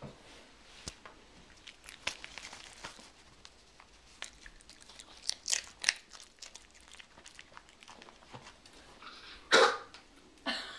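Chihuahua crunching and chewing tortilla chips: irregular crisp crackles, with a louder, fuller burst of sound near the end.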